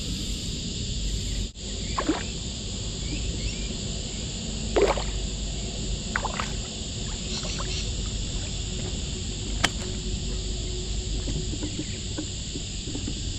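Outdoor ambience on a paddle board: a steady low rumble of wind on the microphone under a steady high hiss of insects, with a brief dropout about a second and a half in and a few short sharp sounds scattered through.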